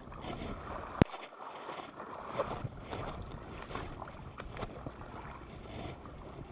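Shallow seawater sloshing and splashing over rocks, with one sharp click about a second in and a few lighter knocks and rustles after it.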